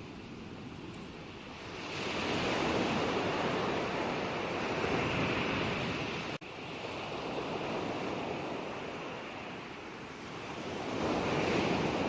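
Ocean surf: waves rushing in and washing back, one swelling about two seconds in and another building near the end. There is a split-second gap in the sound about halfway.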